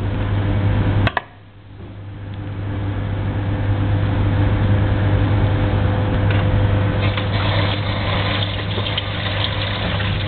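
Tap water running and splashing while a gutted fish is rinsed, over a steady low hum. About a second in there is a click, and the sound drops away and then swells back up.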